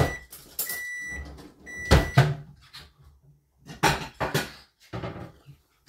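A kitchen appliance timer beeping, half-second beeps about once a second that stop about two seconds in, followed by several sharp knocks and clatters.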